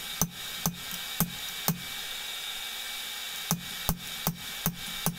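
Hand hammer striking a hot punch driven into red-hot steel on an anvil, punching an eye hole: sharp metal blows about two a second, with a pause of nearly two seconds in the middle before the blows resume.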